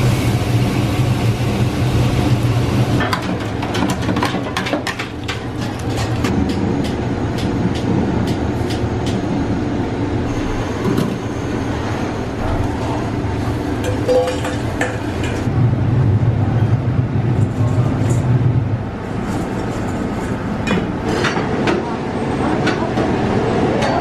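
Food deep-frying in the wire baskets of a commercial deep fryer: the oil bubbles and crackles, over a steady low kitchen hum.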